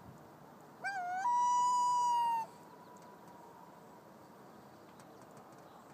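A hand-held loon call blown to imitate a common loon's wail: a few short wavering notes, then one long steady high note held for about a second before it fades out.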